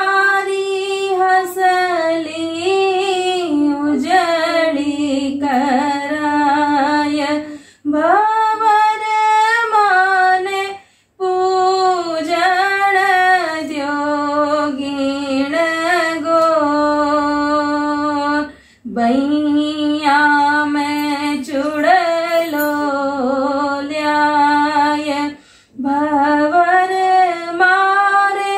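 A woman singing a Rajasthani Gangaur puja folk song with no instruments, in long phrases broken by a few short pauses for breath.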